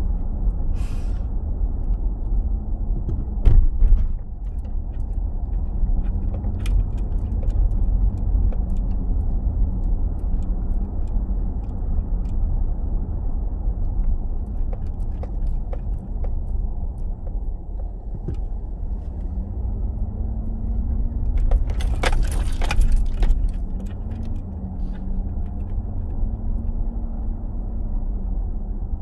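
Steady road and engine rumble inside a car's cabin while driving slowly, with a faint engine hum that rises and falls a little. There is a single knock about three and a half seconds in, and a brief jangling rattle about twenty-two seconds in.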